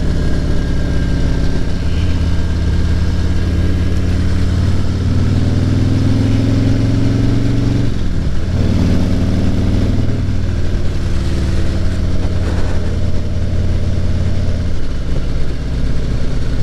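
Motorcycle engine running under way, its note dropping and rising a few times, with a brief break about eight seconds in.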